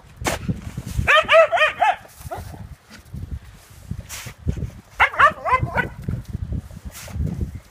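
Scottish terrier yapping in two quick bursts of high-pitched barks, about a second in and again about five seconds in, with snow crunching and scraping in between.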